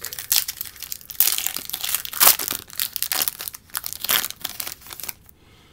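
Wrapper of a trading-card pack crinkling and tearing as it is pulled open by hand: a rapid, uneven run of crackles that stops shortly before the end.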